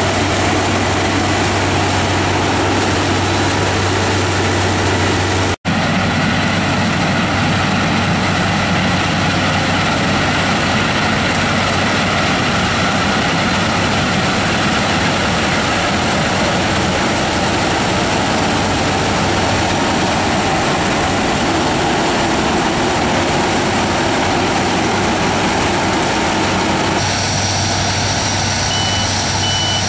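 Claas Lexion 670 Terra Trac combine harvester running continuously while harvesting soybeans, its engine and threshing machinery a steady loud drone with a low hum. The sound drops out for a split second about five seconds in. Near the end, a reversing alarm starts beeping at an even pace.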